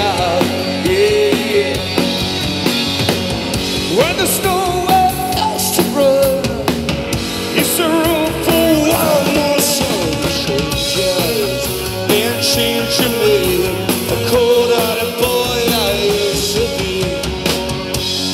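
Live rock band playing electric guitars, bass guitar and a drum kit, with a wavering melodic lead line over them.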